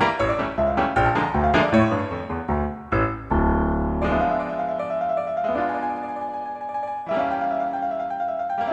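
Silent-film-style piano music: quick notes for about three seconds, then sustained chords under a long held high note.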